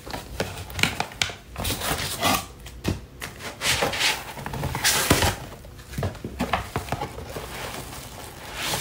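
Paper and plastic packaging rustling and crinkling in irregular bursts as it is handled and opened.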